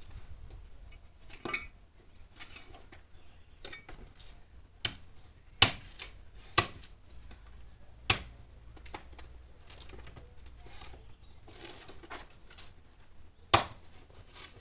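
Sticks of firewood knocking together as they are tossed onto a bonfire pile: several sharp, irregularly spaced wooden knocks with lighter clicks and rustling of branches between.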